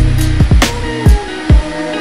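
Background music: an instrumental beat with held bass notes and a few deep drum hits.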